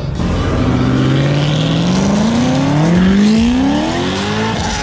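Corvette V8 accelerating hard away from the crowd: the engine note climbs, drops at an upshift a little under three seconds in, then climbs again.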